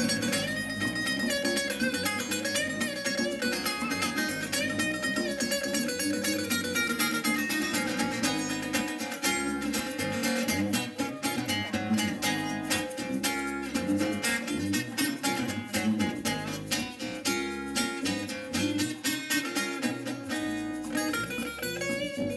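Live instrumental music on two acoustic guitars: strummed chords under a picked melody line, with a hand shaker keeping a steady beat.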